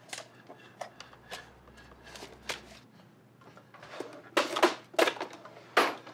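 Hurried handling at a wooden dresser: a drawer being worked and objects knocking and clattering. The knocks are sparse at first, then come as several loud bangs in quick succession about four seconds in and again near the end.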